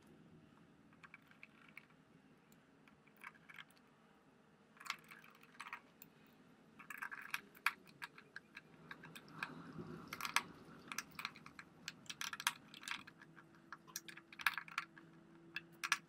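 Small screwdriver driving screws into a monitor's plastic stand mount, with hands handling the stand: many light, irregular clicks and taps of metal and plastic, sparse at first and coming thick and fast from about five seconds in.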